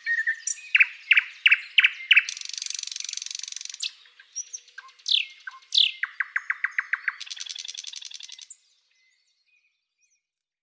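A songbird singing: runs of short falling chirps, two sharp downward whistles and two fast buzzy trills, cutting off suddenly about eight and a half seconds in.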